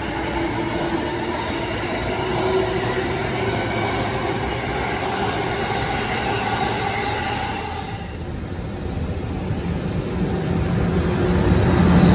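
A Keihin-Tohoku Line E233-1000 series electric train pulling away: the whine of its traction motors holds several steady tones that creep slightly up in pitch over the rumble of wheels on rail. About eight seconds in the whine drops away and a heavier low rumble builds, louder toward the end, as a freight train hauled by an EH200 electric locomotive with tank cars comes through.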